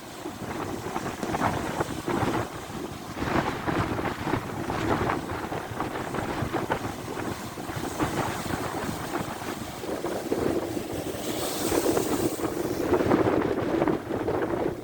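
Rough sea waves surging and breaking, with wind buffeting the microphone; a brief higher hiss of breaking surf near the end.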